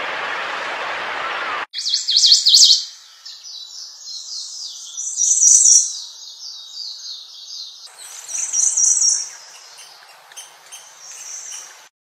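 A small warbler singing high, fast trilled phrases, repeated every few seconds with quieter notes in between. Before the song, a steady rushing noise cuts off abruptly just under two seconds in.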